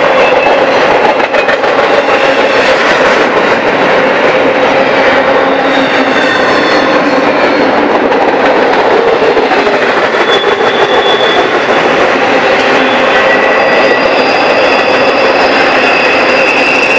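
Loud steady rumble and rattle of an intermodal freight train's well cars rolling past on the rails close by. Thin high-pitched wheel squeals come and go, a few seconds in, again around the middle, and more steadily near the end.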